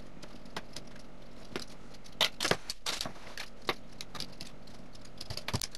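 Wheel pizza cutter rolling through a baked pizza on a paper-lined baking tray: a string of short crunches, scrapes and light metallic clicks, busiest about two to three seconds in and again near the end.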